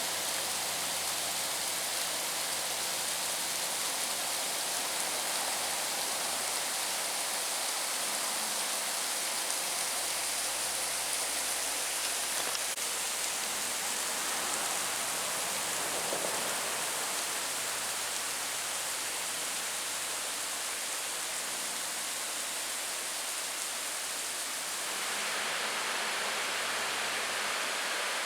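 Rushing river water over rapids and small falls: a steady, even hiss.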